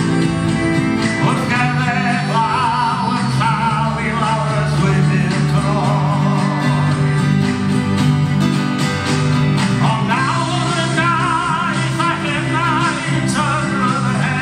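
A man singing a Welsh-language song to his own acoustic guitar through a stage PA, the voice coming in phrases with vibrato over steady guitar chords.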